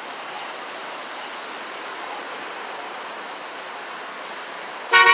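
Steady roar of road traffic on an expressway. Near the end a car horn sounds loudly in short honks.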